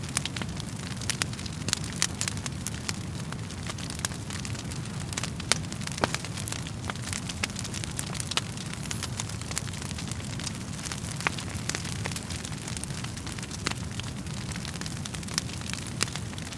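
Wood fire crackling: frequent sharp pops and snaps over a steady low rumble of the flames, with the loudest pop about five and a half seconds in.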